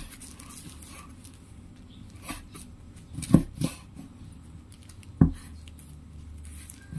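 Cleaver chopping pickled bird's eye chilies on a wooden cutting board: a handful of separate knocks of the blade on the board, the loudest about three and a half and five seconds in.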